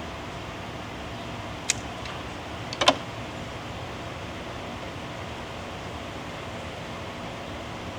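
Hand tools working a wire: a sharp click, then a quick cluster of clicks a second later, such as a wire being cut to size and a terminal crimped. A steady fan-like hiss runs underneath.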